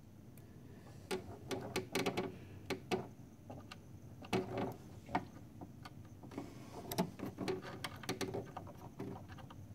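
Metal tweezers and fingers tapping, clicking and scraping on the metal bobbin area of a Husqvarna Viking embroidery machine while the thread-cutter knife blade is fitted back onto its peg. The small clicks come irregularly, starting about a second in.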